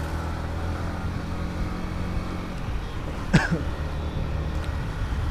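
Yamaha MT-15's single-cylinder engine running at a steady cruise, with road and wind noise. A brief vocal sound comes about three seconds in.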